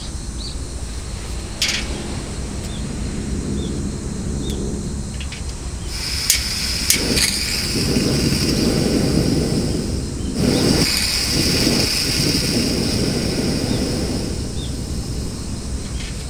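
SOTO ST-301 single gas burner being lit: a few sharp igniter clicks, then gas hissing and the flame burning with a low rumble. The flame drops out for a moment about ten seconds in and comes back. The burner is lighting irregularly.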